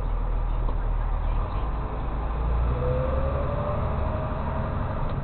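Tow truck engine running as heard inside the cab while the truck drives slowly, a steady low rumble with a whine that rises in pitch in the middle and then eases off.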